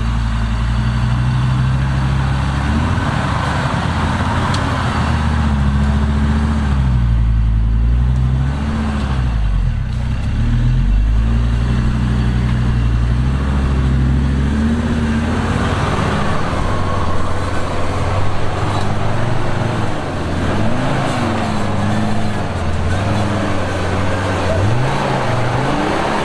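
Troller T4 off-road 4x4's engine revving up and down as it climbs a deep muddy rut, its pitch rising and falling again and again every few seconds.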